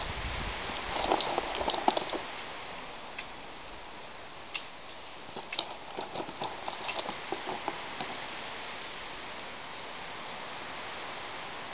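A scatter of short sharp clicks and rustles as a rifle is handled in long grass, over a steady background hiss.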